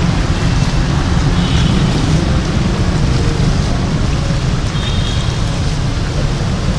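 Steady city traffic noise from passing motorbikes and cars, mixed with the continuous splashing of a fountain.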